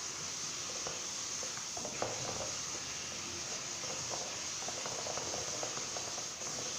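Glue-and-baking-soda slime mixture being stirred in a bowl: soft scraping and scattered small clicks over a steady hiss, with a sharper click about two seconds in.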